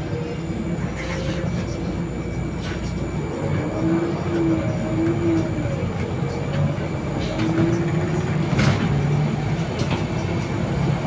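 Inside a Solaris Urbino 18 III articulated city bus moving off and driving on a wet road: a steady drivetrain hum with a whine that rises and falls in pitch as the bus gathers speed, over road and tyre noise, with a couple of short rattles or clicks from the cabin.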